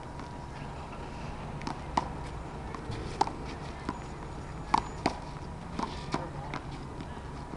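Sharp smacks of a small rubber handball during a rally: struck by a bare or gloved hand and hitting the concrete wall and court, about half a dozen in all, with shoe scuffs between them over a steady low rumble.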